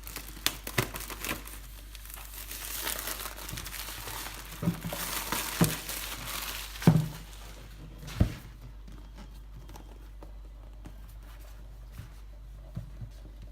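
Plastic shrink-wrap crinkling and tearing as a retail box is unwrapped, with sharp clicks and knocks from handling the packaging. After about eight seconds it goes quieter, with only occasional small taps.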